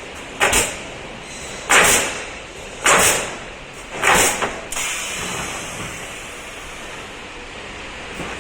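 CNC pallet nailing machine driving nails: four sharp shots roughly a second apart, each trailing off quickly, then the machine running steadily.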